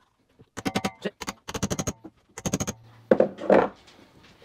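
Mallet tapping a metal bearing-press cup to drift a new front wheel bearing into a Triumph Acclaim hub: several quick flurries of light, ringing metallic taps. A couple of heavier knocks follow near the end.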